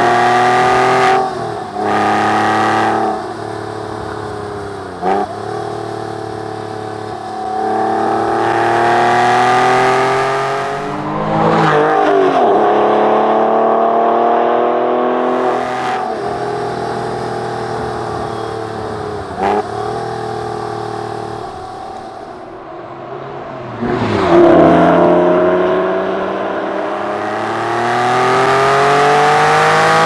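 Porsche 996 Carrera 4S's 3.6-litre flat-six accelerating hard through the gears of its manual gearbox, the revs climbing and then dropping sharply at each shift, several times. About midway the revs sink slowly as the car slows, then climb steeply again near the end.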